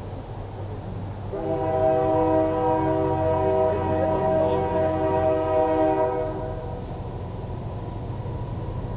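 Diesel locomotive air horn sounding one long blast, a chord of several tones held for about five seconds, starting about a second and a half in. A low rumble runs underneath throughout.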